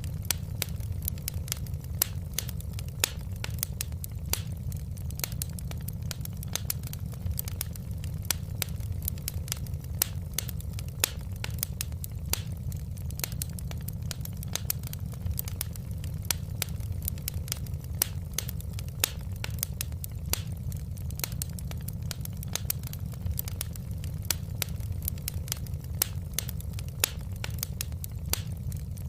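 Fireplace fire crackling: dense, irregular sharp pops and snaps over a steady low rumble of the flames.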